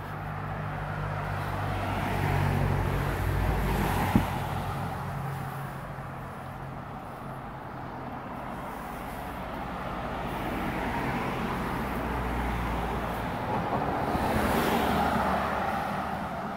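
Road traffic: cars passing along the street close by, the noise swelling as one goes past a few seconds in and again near the end, over a low engine hum. A single short click about four seconds in.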